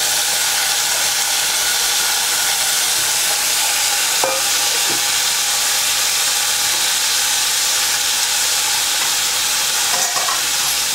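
Chopped vegetables sizzling steadily in hot mustard oil in an aluminium pressure cooker, frying just after being added.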